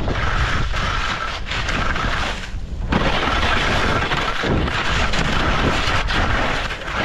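Skis scraping and chattering over hard, chopped-up snow at speed, mixed with heavy wind buffeting on the action camera's microphone. The noise drops away briefly about two and a half seconds in, then picks up again.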